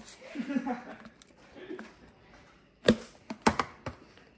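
Kitchen handling noise: faint talk in the first second, then a handful of sharp taps and knocks, about four strokes close together near the three-second mark, as containers are handled at the stove.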